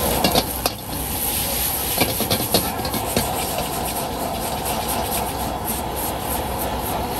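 Metal spatula scraping and clanking against a steel wok as egg noodles are tossed and stir-fried, over a steady rush from the gas burner. A few louder clanks come near the start and again about two seconds in.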